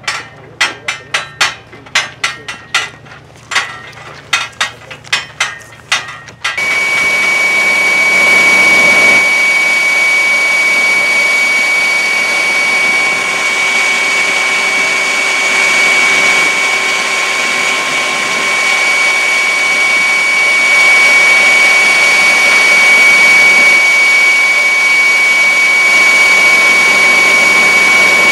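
A run of sharp knocks, about two a second. About six and a half seconds in, the sound cuts to loud, steady machinery noise with a high, steady whine that runs on unchanged.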